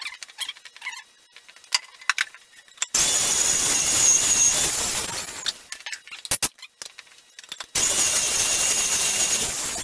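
Corded handheld power tool run against a cedar log in two bursts, the first starting suddenly about three seconds in and lasting about two and a half seconds, the second starting about two seconds later and lasting about two seconds. Light clicks and knocks of the wood and tool being handled come before and between the bursts.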